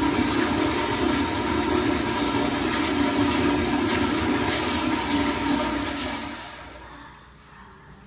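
Kohler Kingston wall-hung toilet flushing through its flushometer valve: a steady rush of water in the bowl that fades away about six and a half seconds in as the flush ends.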